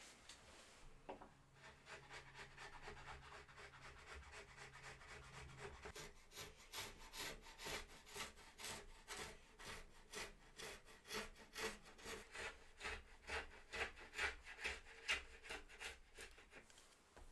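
Sharp chisel paring iron-on edge banding flush along the edge of a table top: a run of short scraping strokes, growing louder and quicker from about halfway through.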